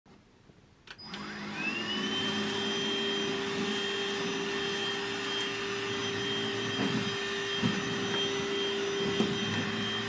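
Grundig VCH 9929 L 18-volt cordless bagless stick vacuum switched on with a click about a second in. Its motor spins up with a rising whine, then runs steadily while the floor brush picks up crumbs from wooden decking, with a few small ticks from the debris.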